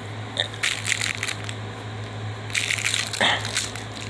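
Scratchy crunching and rustling as a dog's fur and paws rub against the bedding and toys right at the microphone, in two bouts: about half a second in, and again in the second half. A steady low hum runs underneath.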